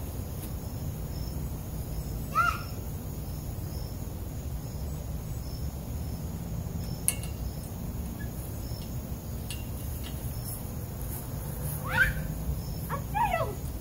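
Insects chirping in short high pulses about twice a second over a steady low rumble. A few brief high calls slide up and down, once early and several near the end.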